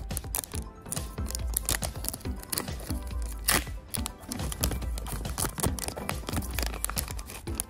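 A foil trading-card booster pack crinkling and tearing as it is pulled open by hand, with its loudest crackle about three and a half seconds in, over background music.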